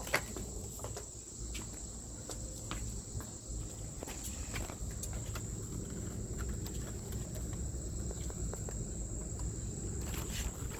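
Steady high-pitched insect trill with scattered footsteps and light clicks.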